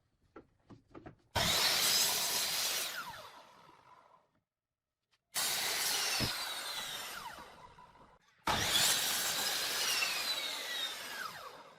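Woodworking power tool running on wood in three bursts of about three seconds each. Each burst starts suddenly and dies away with a falling whine, as the tool winds down.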